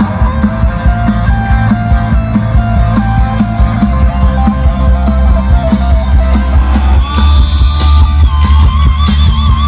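Loud rock music with electric guitar, heavy bass and drums through a large outdoor concert PA system during sound check; a held, wavering note comes in about seven seconds in.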